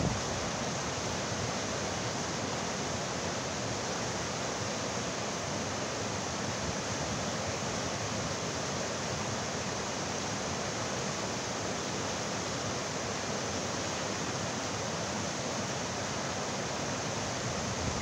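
River rapids: water flowing steadily over and around large boulders in an even, unbroken rush.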